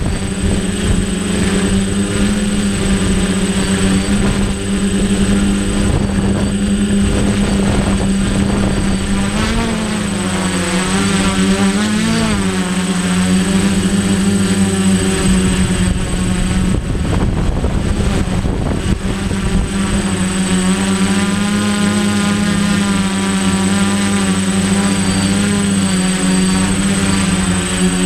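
DJI Flame Wheel 450 quadcopter's electric motors and propellers running in flight: a steady loud buzzing hum whose pitch wavers as the motors speed up and slow down, mostly around ten seconds in and again in the second half. Wind buffets the microphone underneath.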